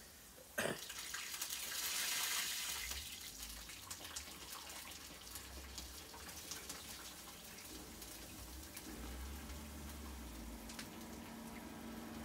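Jalebi batter frying in hot oil: a sudden burst of sizzling about half a second in, loudest for the first couple of seconds, then settling into a steady sizzle with many small crackles.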